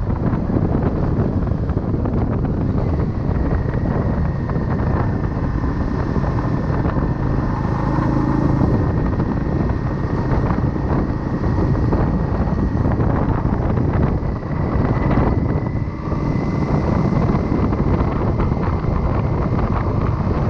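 Motorcycle being ridden, its engine running under heavy wind buffeting on a chest-mounted microphone, with a faint steady whine throughout.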